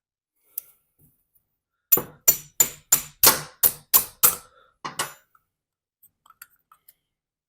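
About ten sharp, ringing metal knocks, roughly three a second, from a stuck float bowl on a small-engine carburetor being tapped to break it loose from varnished, gummed-up old fuel.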